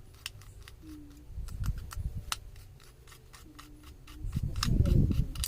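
Sharp little clicks and scrapes of small tools and metal parts as a small amplifier circuit board is opened up to expose its chip. Dull low thumps of handling come near the end.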